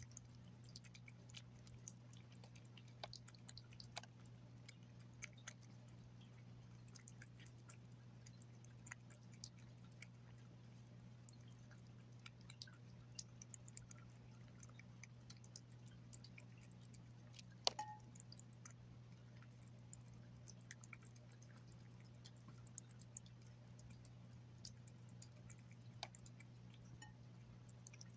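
Domestic cat eating wet food from a glass plate: faint, irregular wet smacking and chewing clicks, with one sharper click about two thirds of the way through, over a low steady hum.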